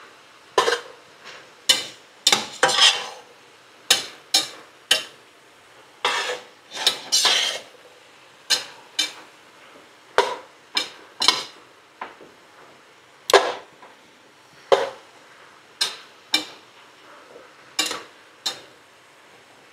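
A cooking utensil stirring beef, onion, garlic and peppers in a pot. It clacks against the pot's sides and bottom in irregular strokes about once a second, some drawn out into longer scrapes.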